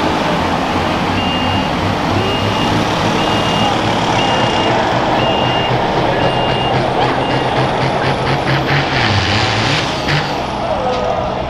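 John Deere 4320's turbocharged six-cylinder diesel running steadily, with a backup alarm beeping at an even pace for the first several seconds. From about seven seconds in, a high whistle climbs as the turbo spools up, then falls away near the end.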